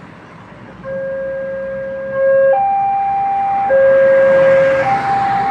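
Railway level crossing warning alarm starting about a second in: an electronic two-tone signal alternating between a lower and a higher note, each held about a second. It warns that a train is approaching and the barriers are about to close.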